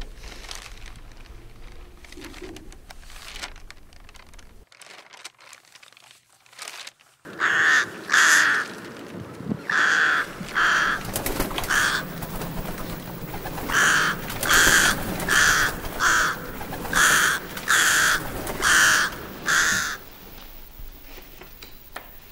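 Rooks cawing: a run of about a dozen harsh caws, some in quick pairs, starting about seven seconds in after a few quiet seconds.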